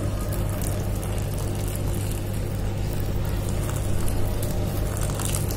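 Hot water poured in a steady stream from a steel vessel into a glass bowl of rice flour, splashing and gurgling, over a steady low hum.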